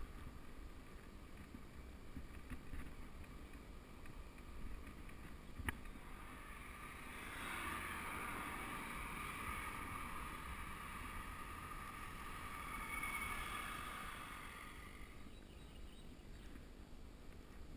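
Wind rumbling on the microphone of a camera riding a road bike downhill, with tyre and road hiss that swells for several seconds in the middle and fades again; one sharp click about six seconds in.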